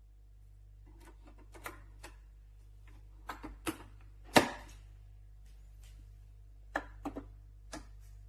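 Handling clicks and knocks from a pod coffee machine being worked: scattered light clicks, with one loud knock about four seconds in, over a faint steady hum.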